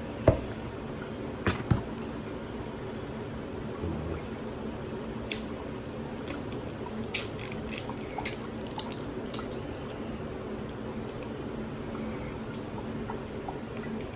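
Scattered clicks and light clatter of kitchen things being handled, thickest about halfway through, over a steady low hum.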